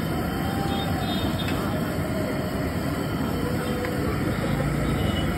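Steady low roar of a high-pressure gas burner firing under a large wok, with a few faint thin tones from the street mixed in.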